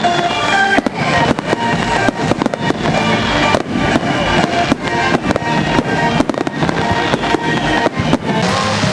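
Fireworks bursting in quick, irregular succession over music, the bangs stopping near the end while the music carries on.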